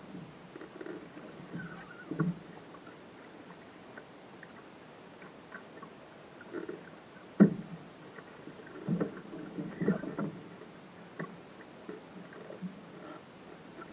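Small waves slapping against a sailing dinghy's hull at irregular intervals, with the sharpest, loudest knock about seven and a half seconds in and a cluster of slaps a little later.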